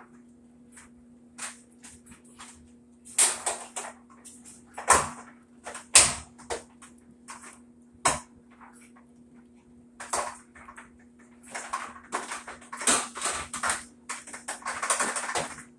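Irregular knocks, clicks and scrapes of metal and plastic parts as hands work inside a top-load washer's cabinet on its suspension rods, with a longer scraping stretch near the end. A faint steady hum runs underneath.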